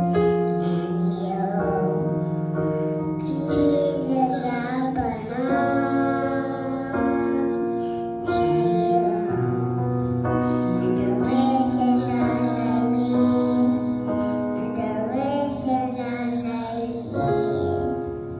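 A child singing a solo into a microphone, accompanied by keyboard holding sustained chords.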